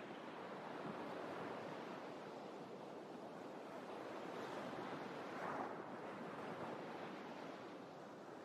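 Steady outdoor rushing noise, such as wind or distant surf, with a brief swell about five and a half seconds in.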